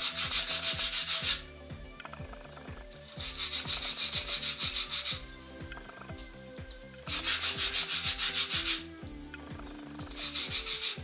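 Edge of a small plexiglas (acrylic) plate rubbed back and forth by hand on a flat sheet of 120-grit sandpaper to chamfer it: a quick, rasping scrub in four bursts of one to two seconds each, separated by short pauses.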